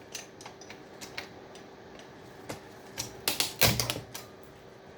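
Scattered sharp clicks and knocks of small hard parts being handled and pulled from a power supply circuit board, with a louder knock a little over three and a half seconds in, over a faint steady hum.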